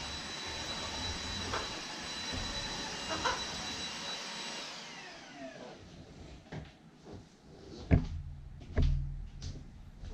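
Cordless stick vacuum running steadily with a high whine, then switched off about four and a half seconds in, its motor spinning down with a falling whine. A few sharp knocks follow as the vacuum is handled, the loudest about eight seconds in.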